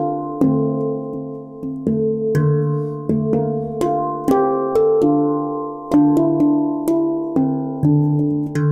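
Datura 22-inch, 10-note steel handpan in D minor played with the hands: a steady stream of struck notes, each ringing on and overlapping the next, with a deep low note recurring beneath the higher tone fields.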